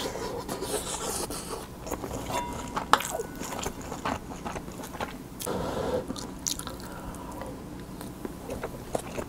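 Chewing and biting on mouthfuls of kimchi fried rice with fried quail eggs, with wet mouth clicks, and a wooden spoon scraping and tapping the bowl as the next spoonful is scooped up.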